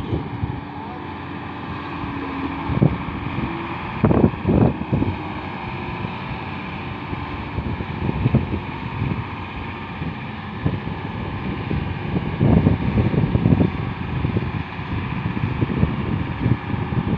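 Heavily loaded Hino FM truck's diesel engine running steadily as it pulls along a dirt track, with gusts of wind buffeting the microphone.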